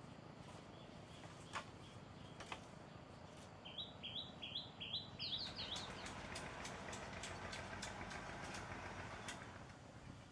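Cut bamboo knocking and clicking as it is handled: two sharp knocks early, then a run of light clicks and rustling. A bird sings a quick series of about six rising chirps partway through.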